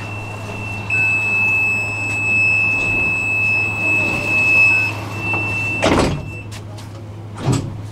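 Tram standing with its steady low electrical hum and a steady high tone. Its sliding doors shut with a loud clunk about six seconds in, followed by a smaller knock near the end.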